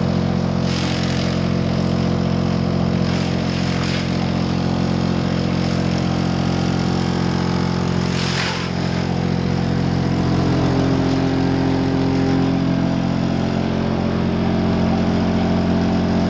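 Sawmill machinery, the chipper line with its vibrating conveyor, running steadily: a loud, even hum made of several steady tones. Short bursts of hissing rattle come through about a second in, around three to four seconds in, and again around eight seconds in.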